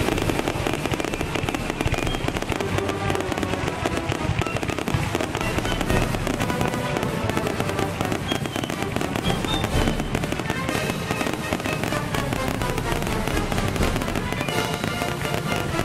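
Fireworks crackling and popping in a dense, unbroken stream, with music playing underneath.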